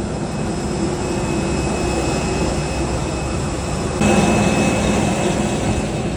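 Jet airliner engines running with a steady rushing noise and a few faint steady whines, stepping up louder about four seconds in.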